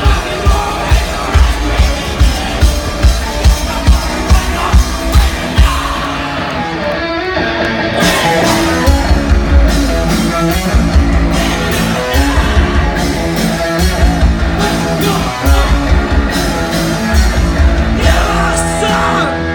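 Live punk rock from a two-piece band: drum kit and electric guitar playing loudly. A steady, heavy beat runs for the first few seconds, then the sound grows fuller and busier from about eight seconds in.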